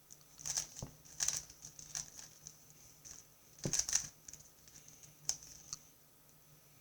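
GAN 3x3 speedcube being turned by hand, its plastic layers clicking and rattling in irregular runs of quick turns, loudest a little under four seconds in.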